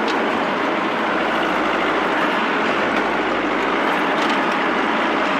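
Farm tractor's engine running steadily as it drives along, at an even, loud level.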